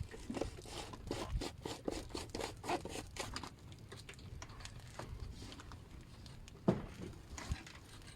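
Rustling, crackling handling noise with a quick run of clicks over the first three seconds, thinning out, then a single sharp knock about six and a half seconds in.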